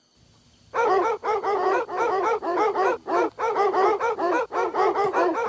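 Boar-hunting dogs yelping rapidly, about six or seven yelps a second in long runs with brief breaks, starting suddenly about a second in.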